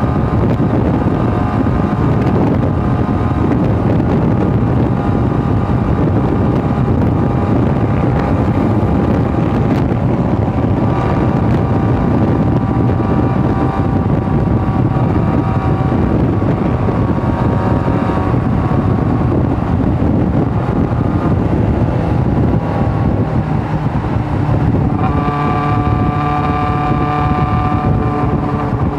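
Sport motorcycle engine running at steady cruising speed, with heavy wind rush buffeting the helmet-mounted microphone. Near the end the engine note shifts and comes through more plainly over the wind.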